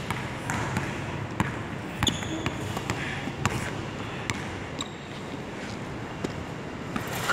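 A basketball being dribbled on a hardwood gym floor, one sharp bounce roughly every second.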